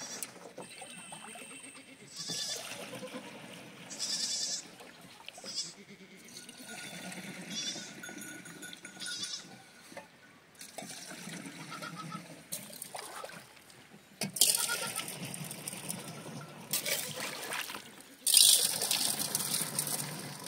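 Goats bleating now and then, with bursts of rushing noise in the second half, the loudest coming near the end.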